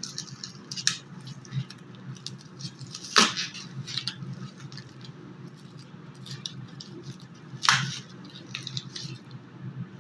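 Small clicks, taps and scrapes from handling thermocol pieces and their container while dissolving them in acetone, with two sharper knocks about three and eight seconds in, over a steady low hum.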